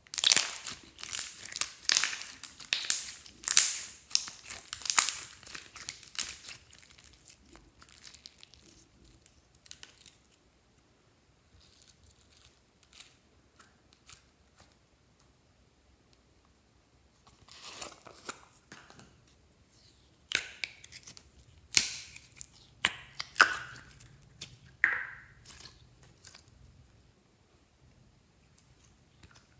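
Hands squeezing and stretching glossy slime: dense bursts of crinkling and crackling for the first several seconds, then, after a quiet stretch, a run of sharp pops and clicks.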